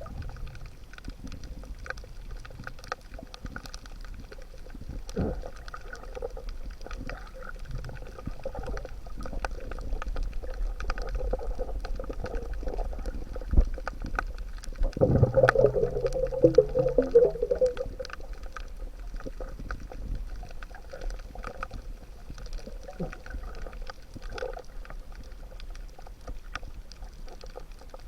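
Underwater recording: a steady low rumble with scattered faint clicks and crackles throughout. About halfway through, a louder gurgling burst of bubbles lasts around three seconds.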